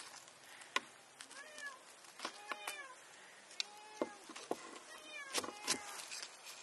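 A cat meowing over and over: about half a dozen short calls that rise and fall in pitch. Several sharp knocks or taps fall between them.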